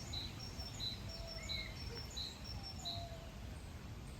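Small birds chirping: short high chirps repeated every half second or so, with a few lower whistled notes, over a low steady background noise.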